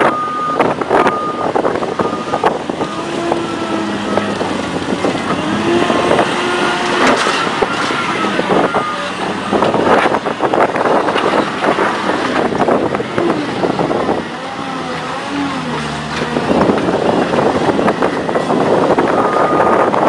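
Heavy wheel loader's diesel engine working under load, with rattling and clatter of earth and stones. Short beeps about a second apart sound near the start and again near the end.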